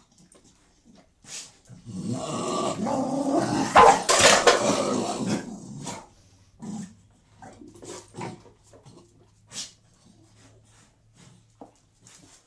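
Two beagles growling and snarling at each other in a short scuffle over their food, loudest about two seconds in and dying away after about four seconds. Afterwards only short sniffs and small scattered noises.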